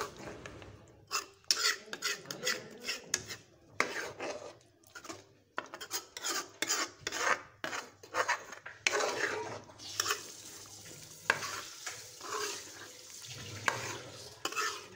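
Metal spoon stirring chicken in a thick, wet yogurt-and-tomato gravy in a steel karahi, scraping and clinking against the pan in many quick, irregular strokes.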